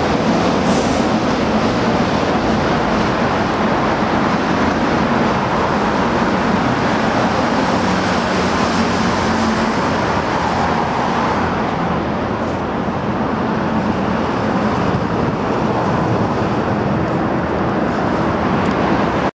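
Steady traffic noise from vehicles on an elevated expressway, an even rumble and hiss that barely changes.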